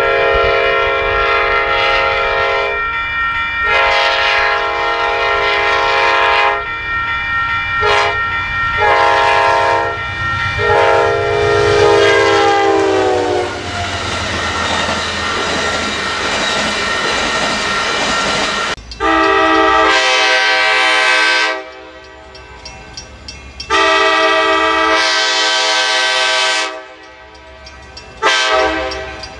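A locomotive's multi-chime air horn sounding a series of long blasts. About 12 seconds in, its pitch drops as the train passes, followed by several seconds of steady noise from the passing train. The horn starts again in separate blasts from about 19 seconds on.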